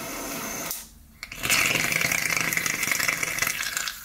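A gas torch hisses briefly on a PTFE-wrapped wire with a tape starter, then stops. About a second and a half in, the wire flares up in liquid oxygen with a loud, dense crackling sputter. It lasts about two and a half seconds and cuts off near the end.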